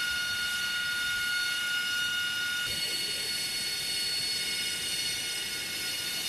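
AV-8B Harrier II's Rolls-Royce Pegasus turbofan running at taxi power, a steady high-pitched jet whine made of several steady tones. A bit under halfway through, the mix of tones shifts suddenly.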